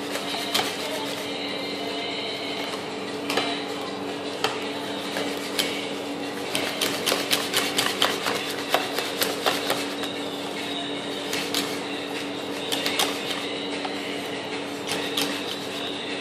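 Wire whisk beating egg batter in a ceramic bowl, its wires clicking rapidly against the bowl's side, busiest in the middle stretch. A steady hum runs underneath.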